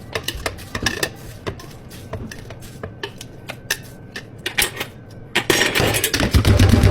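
Quick irregular clicks and knocks of cups, lids and tools being handled on a counter. About six seconds in, a machine motor starts and runs with a steady low hum.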